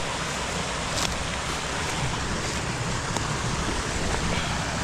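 Steady rushing noise of a waterfall, with wind buffeting the microphone.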